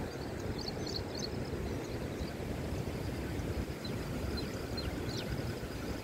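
Steady low rumbling outdoor noise, with a few short, high chirps scattered over it.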